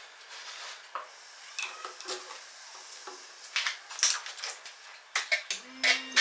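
Scattered metallic clicks and clinks of hand tools and parts being handled, growing busier in the second half, with a brief steady hum just before the end.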